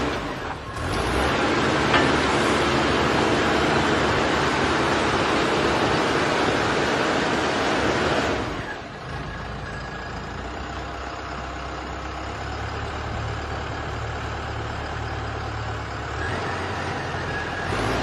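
A self-loading concrete mixer's diesel engine runs steadily while its rotating drum tips out wet concrete. The sound drops noticeably in level about halfway through.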